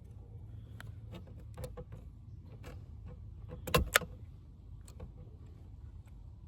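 Scattered small clicks and knocks of parts and tools being handled while the van's electrical control board and its housing are taken apart, with two louder knocks close together just under four seconds in, over a steady low hum.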